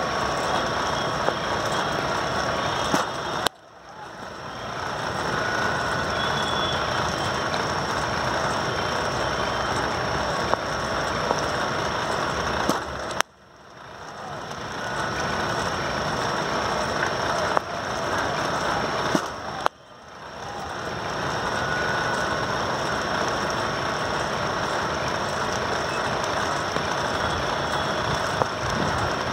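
Cricket bat striking the ball: sharp cracks about three seconds in, about thirteen seconds in and just before twenty seconds, over a steady rushing outdoor background noise. After each crack the background drops away and swells back over a couple of seconds.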